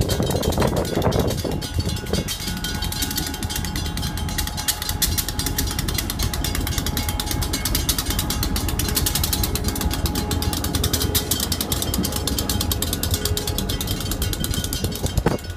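Freight train passing a grade crossing: a diesel locomotive's low rumble, then freight cars rolling by with a rapid, continuous clicking and clanking of wheels over the rails.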